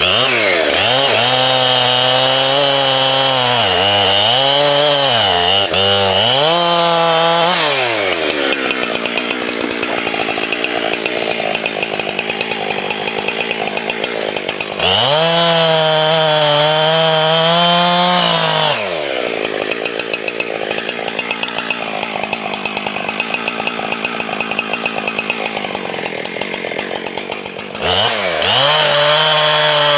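Chainsaw cutting up a felled dead ash: the engine revs high and wavers between cuts, then drops to a lower, rougher sound while cutting through the wood in two long cuts.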